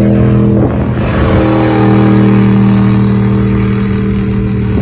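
Ford F-150 SVT Raptor's V8 engine held at high revs as the truck slides and spins on loose dirt, its pitch dipping briefly about a second in, then holding steady.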